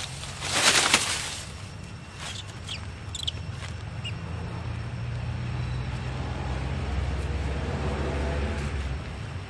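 A short loud burst of noise near the start, then a motor engine running steadily, growing louder from about halfway through.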